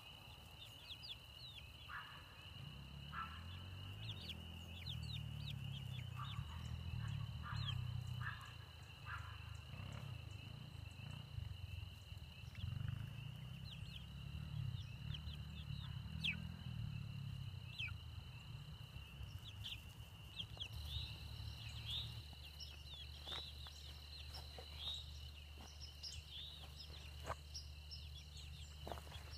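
Young pullets peeping, with many short high chirps, more of them near the end, over a steady high-pitched insect drone. A low rumble comes and goes through the first two-thirds.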